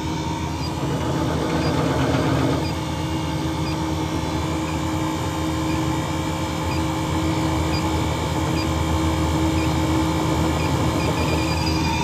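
Custard machine's refrigeration system running with a steady hum, while an electronic refrigerant leak detector ticks slowly and evenly, the ticks coming faster near the end.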